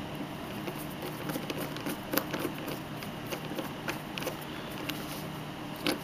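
Small clicks and light metal taps as a screwdriver turns the screw holding the cam onto a cam lock, with a sharper knock near the end.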